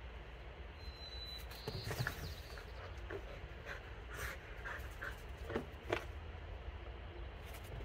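A dog panting hard between disc retrieves, with a few short light knocks and clicks as plastic flying discs are dropped and picked up.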